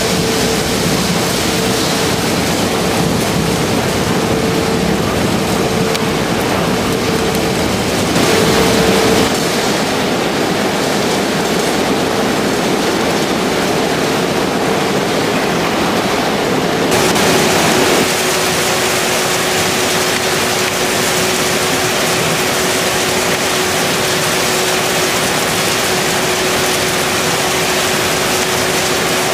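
Construction-waste recycling plant machinery (shredding and pelletizing line) running: a steady, loud mechanical noise with a constant hum. The hum steps down a little in pitch past the middle.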